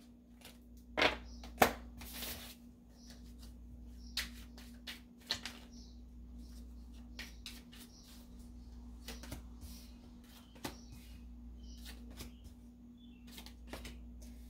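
Tarot cards being handled and dealt one by one onto a tabletop: scattered soft flicks and taps of card against card and card against table.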